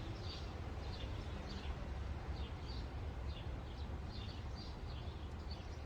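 Birds chirping in the background: short, quick falling chirps repeated about twice a second over a steady low rumble.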